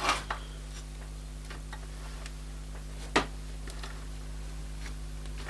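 Scattered small clicks and ticks of a small screw being worked loose from the power supply's circuit board and metal case, with one sharper click about three seconds in.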